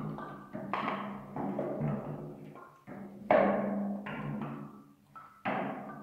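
Wooden shoe lasts hanging on strings knock at irregular intervals against the upturned head of a drum, each hit ringing on briefly. The loudest knock comes about halfway through.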